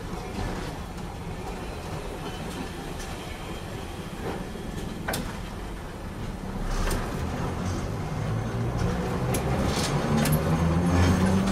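Vintage 570-class streetcar running on street track, a steady low rumble with a few sharp clicks from the wheels on the rails. Near the end a pitched motor whine rises as the tram picks up speed.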